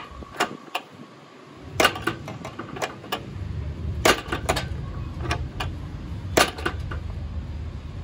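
Steel latch of a homemade mild-steel door lock clicking and clanking as its twisted steel-bar handle is gripped and worked: a run of sharp metal clicks, bunched about two, four and six and a half seconds in. A low steady rumble sits underneath from about a second and a half in.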